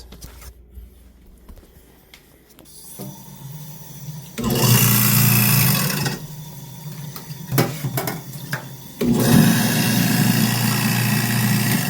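Garbage disposal motor switched on and spinning freely with a steady loud hum, running for about a second and a half, then shut off and started again about three seconds later. A few clicks fall between the two runs, with water running into the sink. The jam between the blades has been cleared.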